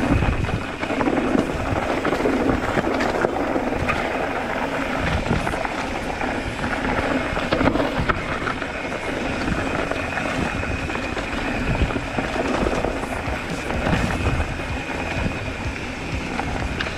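Mountain bike rolling fast down a dirt and stony singletrack: tyres crunching over earth, leaves and rocks, with steady rattling and knocks from the bike and a rumble on the body-worn action camera's microphone.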